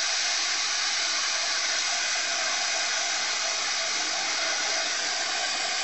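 Electric heat gun blowing steadily, a hissing rush of hot air with a faint steady tone in it. It is held over freshly poured epoxy resin in a silicone mold to bring trapped air bubbles to the surface.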